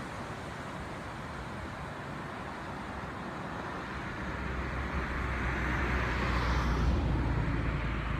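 Ocean surf washing on a beach: a steady rush that swells through the second half as a wave breaks, peaking and then easing near the end.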